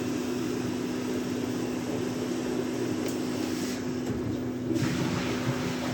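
Steady machine hum with a constant low tone, with a brief louder noise about five seconds in.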